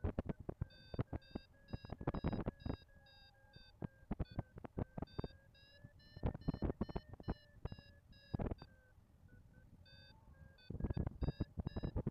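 Paragliding variometer beeping in quick, even pips, about two or three a second, over a steady tone: the sign that the glider is climbing. Bursts of loud crackling and thumping wind buffeting come and go over the beeps, heaviest about two seconds in, around six to seven seconds in and near the end.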